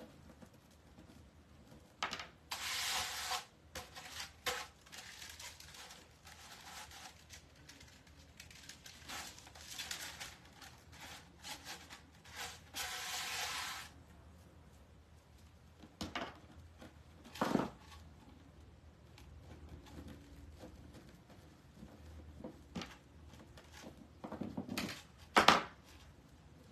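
Plastic deco mesh ribbon rustling in several bursts of about a second as it is scrunched, pulled from a stack and laid flat, with a few sharp knocks, the loudest near the end.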